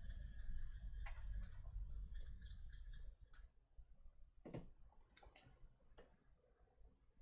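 Faint, scattered clicks and taps of fingers shifting on a die-cast toy car while holding glued parts pressed in place. A faint steady high tone and a low rumble run under it, stopping about three seconds in.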